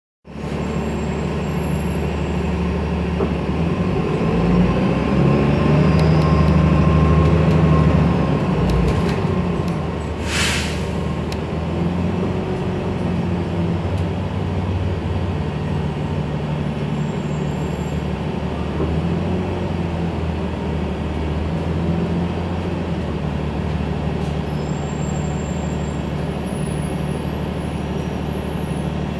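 City transit bus's engine and drivetrain running, heard from inside the passenger cabin as the bus drives. It grows louder for a few seconds near the start, and a short hiss of air sounds about ten seconds in.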